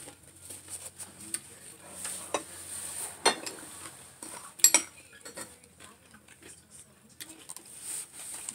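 A metal spoon clinking and scraping against ceramic bowls and plates while eating, with a few scattered sharp clinks, the loudest a little past the middle.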